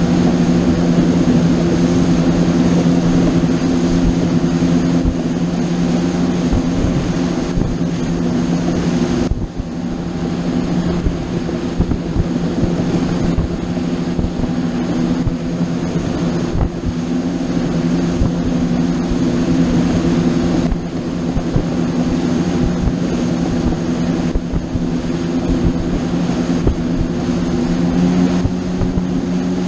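Boat engine running steadily under way, a constant low hum over a rushing noise, dipping briefly about nine seconds in.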